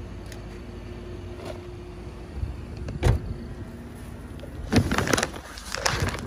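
A car running with a steady low hum. There is a single thump about three seconds in, and a burst of noisy rustling and knocking near the end.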